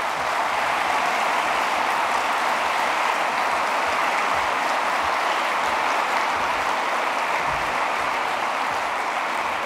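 A conference audience applauding at the end of a speech: dense, even clapping that holds at a steady level.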